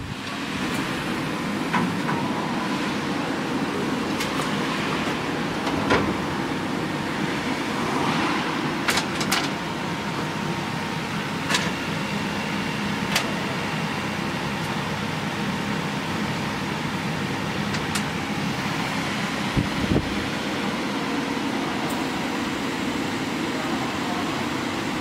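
Steady whir of a CO2 laser cutting machine's ventilation fan and air pump running, with a few light clicks and taps as cut plywood pieces are handled.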